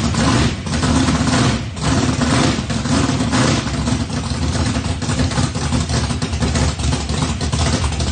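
Engine of a yellow Chevrolet pickup running at idle with the hood open, the new motor fitted to the truck.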